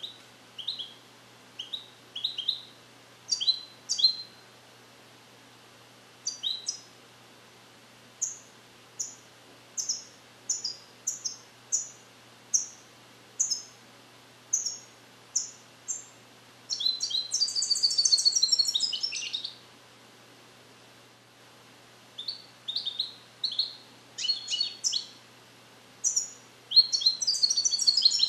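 European goldfinch singing: a string of short, high separate notes, about one a second, broken by a long, fast twittering phrase in the middle and another starting near the end. This is a young song-trained bird working on Neapolitan-style phrases (passate napoletane), his song not yet complete.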